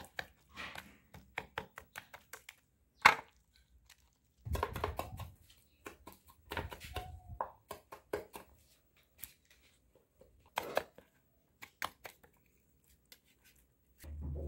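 Knife cutting raw chicken thighs on a wooden cutting board: irregular sharp knocks of the blade meeting the board, with one louder strike about three seconds in.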